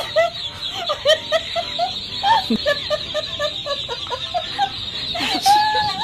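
A large crowd of ducklings peeping together: a dense chorus of short, high, arching peeps, with one longer peep near the end.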